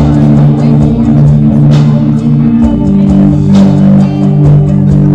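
Loud dance music with sustained low, droning guitar notes and a few scattered drum hits.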